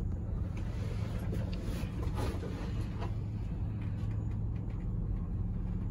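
Steady low hum and rumble inside a moving cable car cabin, with a few faint clicks.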